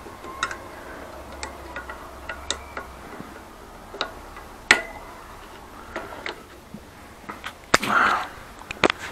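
Scattered metallic clicks and taps of a tool and small parts on a bicycle's disc brake caliper as its washers and fittings are taken off. One sharp clink rings briefly about halfway, and a short louder rattle comes near the end as the wheel is moved.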